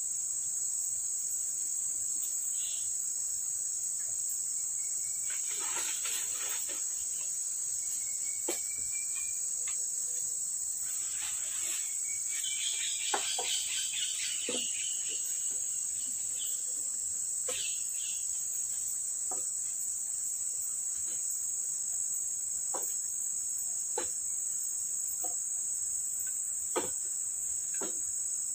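Steady high-pitched insect chorus, with scattered short knocks and brief rustles from wooden poles and leaves as a lashed pole frame is climbed.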